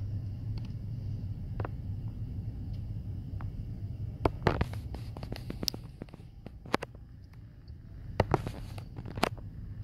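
Low steady rumble of a car heard from inside the cabin. Scattered sharp clicks and knocks come in a cluster about four to five seconds in and again near the end.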